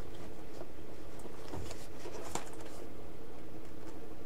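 A few faint clicks and taps from hands pressing and positioning a small receiver on a test board, over a steady background hum.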